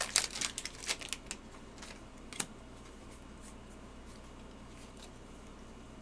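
Crinkling and crackling of a foil booster pack and trading cards being handled, with a quick run of sharp crackles in the first second and a half and a single click about two and a half seconds in, then only a faint steady hum.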